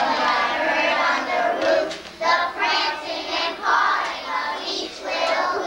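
A group of young children singing together as a choir, with a short break about two seconds in.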